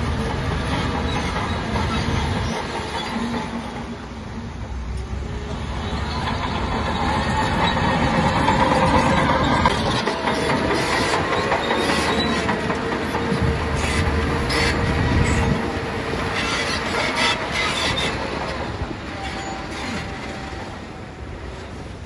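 Crawler bulldozer working: its diesel engine runs steadily and strains louder a couple of times, while the steel tracks clank and squeal.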